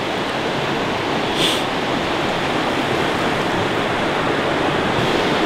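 Steady rush of creek water flowing over a riffle, an even noise with no rise or fall.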